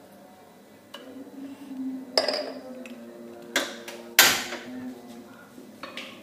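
Kitchenware clattering: a glass oil jug and a nonstick frying pan with its spatula on a gas stove, making four sharp knocks and clinks, the loudest a little past the middle.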